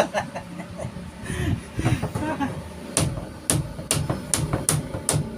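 Hammer driving nails into wood: a run of sharp, evenly spaced blows, about three a second, starting about halfway through.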